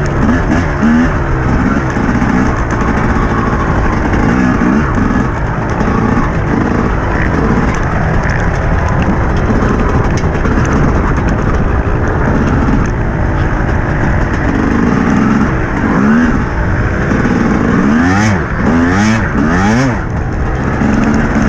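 TM 250 motocross bike's engine revving up and down repeatedly with the throttle and gear changes, heard close up from the rider's helmet.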